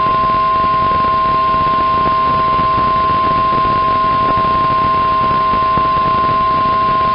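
Weather radio warning alarm tone, a single steady 1050 Hz tone held over radio hiss, sounding to announce a severe thunderstorm warning.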